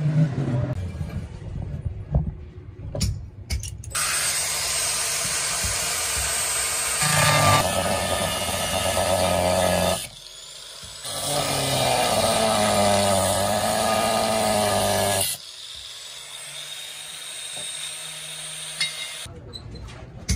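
Angle grinder with a cut-off disc cutting through the steel of an old, rusty circular saw blade. It runs in two long stretches of steady, loud grinding with a short break between, and its pitch sags and recovers as the disc bites. A few clicks and knocks of handling come first, and the grinder runs more quietly near the end.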